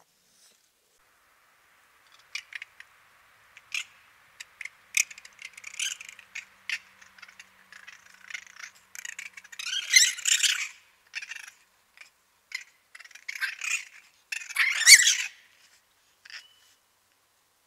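Two raccoons squabbling: a run of short, sharp squeaks and chitters that builds to two longer, louder, harsh squeals about ten and fifteen seconds in.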